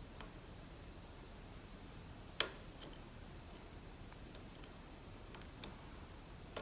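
Lock pick and tension wrench working the pins of an Assa Abloy Arrow lock: a few scattered small metallic clicks, with one sharper click about two and a half seconds in.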